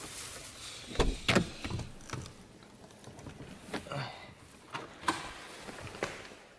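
Car door opening: two sharp clunks about a second in as the door is unlatched and swung open, then scattered light knocks and rustling as someone climbs out.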